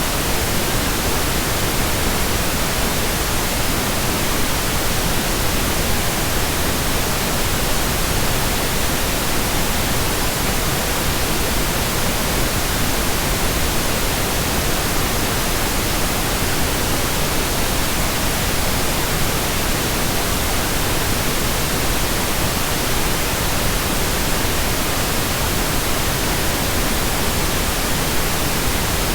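Steady synthetic pink noise, an even hiss spread evenly across the range with no change or events.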